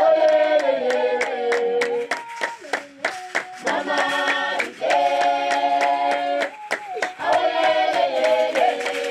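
A group of voices singing together, with steady hand clapping keeping the beat at about three claps a second.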